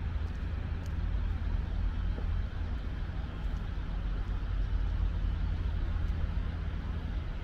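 Steady low rumble of outdoor city background noise, with a faint even hiss above it.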